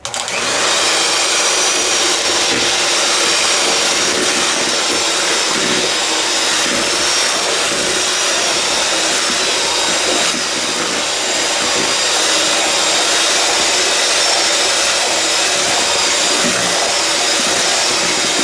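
Handheld electric mixer switching on and running at a steady speed, its beaters creaming butter, sugar and egg yolks in a bowl, with a faint steady whine over the motor.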